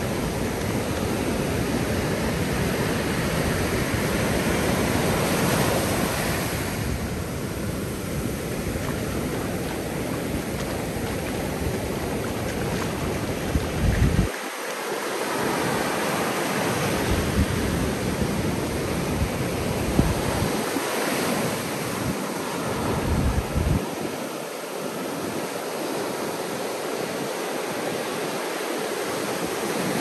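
Ocean surf breaking and washing on a sandy beach in a steady rush. Wind buffets the microphone in low gusts that come and go, most of all in the first half.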